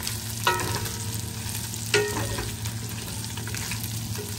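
Diced pork belly, garlic and onion sizzling in hot rendered pork fat in a stainless steel pan, stirred with a wooden spatula. The spatula knocks against the pan twice, about half a second and two seconds in, the pan ringing briefly each time.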